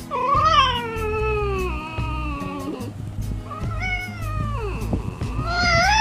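Fox calling: three long, whining calls, each sliding down in pitch. The first is the longest, and the last is short and loudest.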